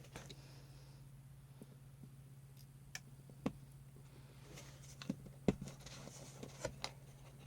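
Scattered faint clicks and taps of an aluminum switch-top removal tool working on a Matias (ALPS-style) keyboard switch, coming more often in the second half, over a steady low hum.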